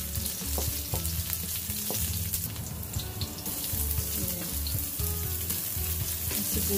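Chopped garlic, ginger and onion sizzling in hot oil in a wok, with a wooden spatula scraping and tapping the pan as the aromatics are stirred.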